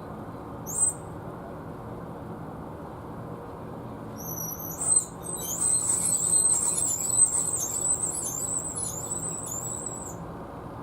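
A small bird calling high-pitched: one short chirp about a second in, then a long run of rapid twittering from about four seconds in until near the end, over steady low background noise.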